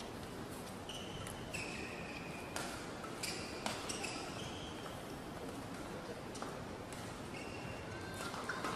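Badminton hall ambience between rallies: a steady murmur from the crowd, with several short high squeaks of court shoes on the mat and a few sharp clicks.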